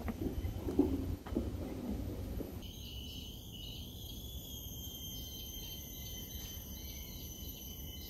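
Rainforest insect chorus: several steady, shrill, high-pitched tones with a pulsing call repeating about twice a second. It takes over abruptly about two and a half seconds in, after a few low knocks and thumps.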